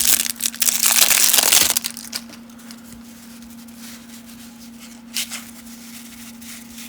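Cellophane wrapper of a baseball card cello pack crinkling and tearing as it is ripped open. The crackling is loud for the first second and a half, then fades to a few faint crinkles, over a steady low electrical hum.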